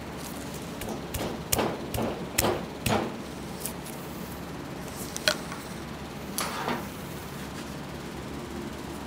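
Metal knocks and clicks of a seal puller prying at a stuck upper steering-column seal in the power steering housing of a Ford 3000 tractor. There is a quick run of four or five knocks about one to three seconds in, a single sharp click a little after five seconds, and a short scrape around six and a half seconds.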